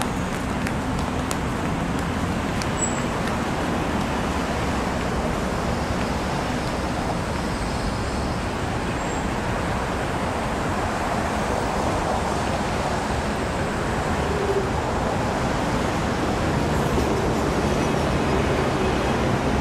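Steady road traffic noise, an even wash of passing cars, growing slightly louder near the end.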